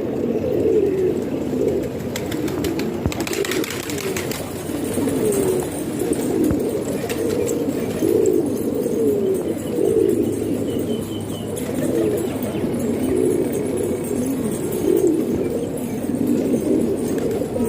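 Domestic pigeons cooing, many birds overlapping in a continuous low burbling chorus. A brief clatter is heard about three seconds in.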